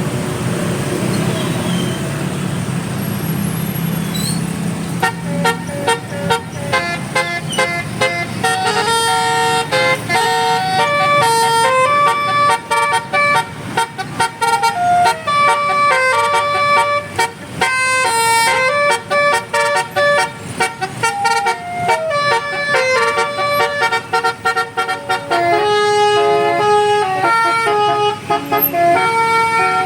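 Bus basuri horn, a multi-tone air horn, playing a fast, shrill melody of changing notes. It starts after about five seconds of low rumble and runs on with a few short breaks.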